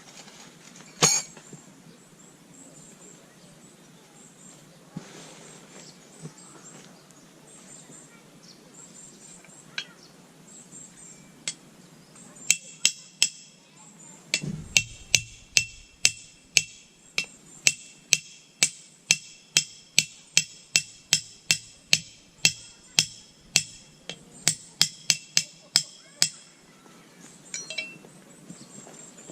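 A run of hard, regular strikes with a metallic ring, about two blows a second, starting a little before halfway and stopping shortly before the end. A single sharp knock comes about a second in.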